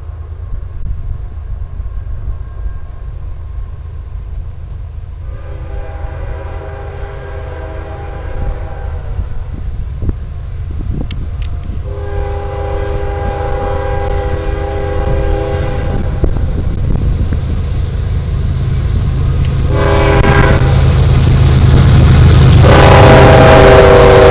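CSX freight train's lead diesel locomotive approaching with a steady low engine rumble that grows louder, while its air horn sounds the grade-crossing signal: two long blasts, a short one, and a final long one still sounding as the locomotive reaches the camera.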